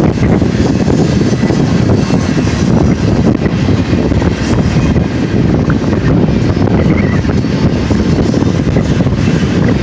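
Double-stack intermodal container well cars rolling past on steel wheels: a loud, steady rumble of wheels on rail.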